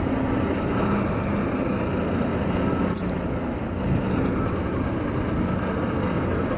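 The boat-lifting crane's engine running steadily with a constant low hum.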